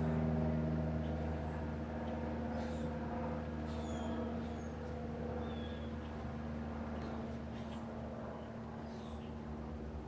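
Antica 42-inch ceiling fan's motor running with a steady hum that slowly fades. Faint short high chirps come now and then over it.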